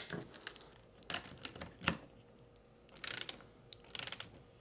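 Ratcheting torque wrench with a socket, clicking in two short rapid bursts as a nut on a Victron Lynx Distributor post holding an MRBF fuse holder is tightened toward 14 newton meters. A few single metal clicks come first.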